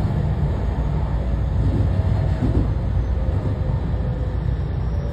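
Onboard running sound of a JR West 207 series 2000-subseries motor car with a Mitsubishi IGBT VVVF inverter: a steady low rumble of wheels and traction motors heard from inside the car. About three seconds in, faint steady inverter tones join the rumble.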